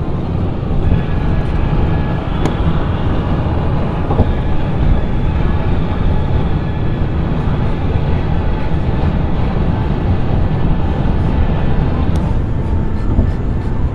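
Steady road noise inside a moving car: tyres and engine rumbling at highway speed.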